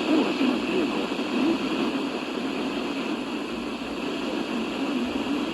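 Steady hiss and static from a NOAA weather radio receiver, with no voice on the channel.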